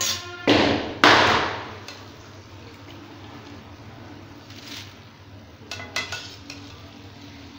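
A metal perforated ladle strikes and scrapes against a metal kadai twice in quick succession, loudly, then gives a few lighter clinks about six seconds in as fried boondi is scooped out of the oil.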